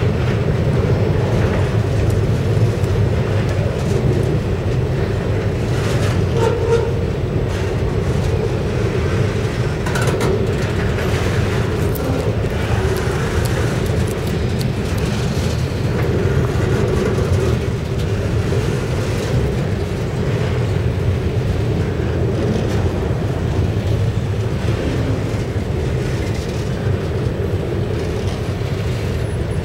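Freight cars loaded with railroad rails rolling past, their steel wheels making a loud, steady rumble on the track, with a few sharp clanks along the way.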